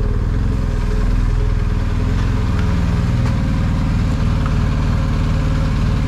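BMW R 1250 GS Adventure's boxer-twin engine running steadily at low revs, an even, fast exhaust beat with no revving, as the motorcycle is ridden slowly.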